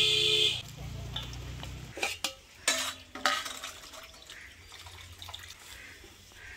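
Opens with a brief loud rasp of cabbage being cut. Then stainless-steel plates and bowls clink and knock a few times, one with a short metallic ring, followed by quieter handling of the steel dishes.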